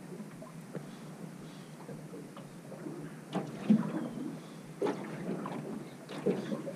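Water lapping at a small fishing boat's hull, with scattered knocks and bumps on the boat, the loudest a thump a little under four seconds in.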